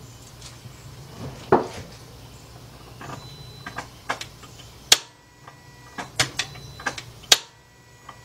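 A few clunks and two sharp clicks, about two and a half seconds apart, as the key is tried in a 2009–2019 Toyota Corolla that does not crank. No starter cranking follows.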